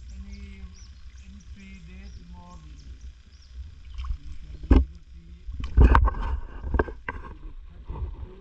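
Kayak paddling on calm water: paddle blades splashing and knocking against the kayak, with a sharp knock about halfway through and a louder cluster of splashes a little after, over a low rumble.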